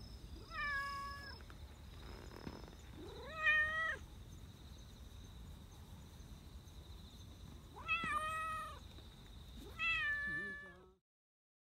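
Black Persian cat meowing four times, each meow short and pitched, the second one the loudest. These are pleased, affectionate meows from a cat being stroked and rubbing against the hand.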